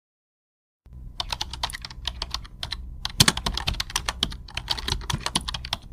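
Typing on a computer keyboard: a quick, uneven run of key clicks that starts about a second in, after a moment of dead silence, over a faint low hum.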